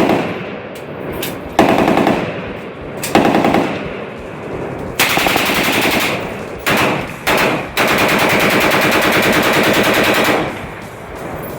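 M249 SAW light machine gun firing on full auto. First three short bursts come about a second and a half apart, then a burst of about a second and two quick short bursts. A long burst of about two and a half seconds follows near the end.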